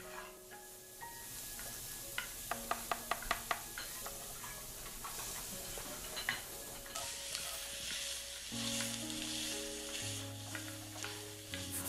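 Food sizzling and frying in a pan, with a quick run of about seven taps a couple of seconds in and a louder stretch of sizzle over the second half. Gentle background music plays underneath.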